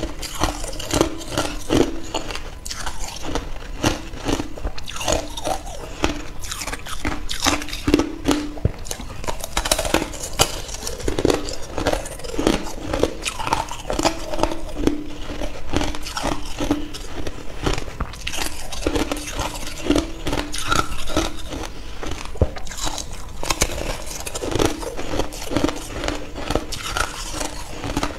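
Ice being bitten and chewed: a slab of shaved ice frozen into thin clear ice cracks and crunches, with a dense, continuous run of crisp crackling crunches.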